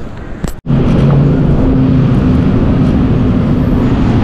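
Loud city street traffic, with a vehicle engine running close by under steady road noise. The sound cuts out for a split second just over half a second in, then comes back louder.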